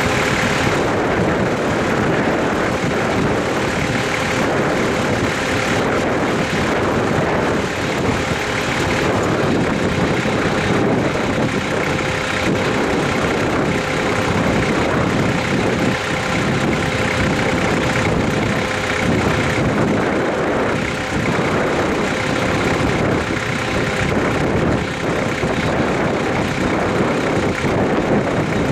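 A long train of coal hopper wagons rolling past: a steady rumble and rattle of steel wheels on rail. A thin, steady whine runs through it.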